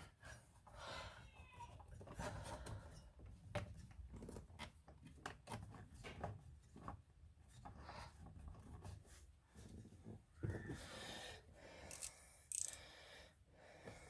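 Faint, irregular clicking and scraping of a small socket on a short extension being worked up under a steering column to start a screw.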